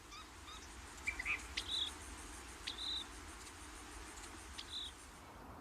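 Faint insect chorus: a rapid, even trill that stops near the end, with three short high chirps over it.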